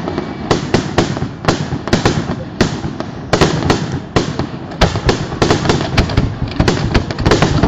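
Fireworks display: shells launching and bursting in a quick, irregular string of sharp bangs, several a second.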